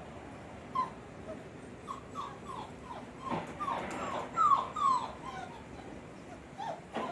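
German Shepherd puppies whimpering: a string of short whines that each fall in pitch, loudest about four and a half to five seconds in.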